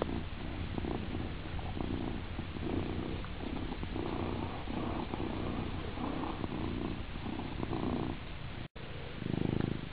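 Domestic cat purring steadily as it rubs its cheeks, the purr swelling and easing about twice a second with its breathing. Near the end it breaks off for an instant and a louder purr follows.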